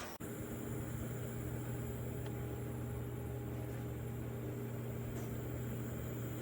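Steady electric hum of a small portable evaporative air cooler's fan motor running, after a brief dropout just after the start.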